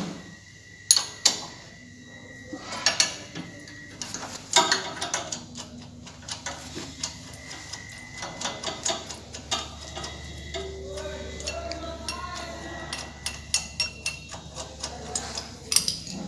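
Scattered metal clicks and clinks of a valve spring compressor being unscrewed and lifted off a Greaves engine's cylinder head, with the valve collets already seated.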